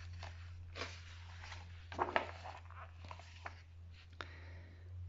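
Faint rustling and a few light clicks of something being handled, the clearest about two seconds in, over a steady low electrical hum.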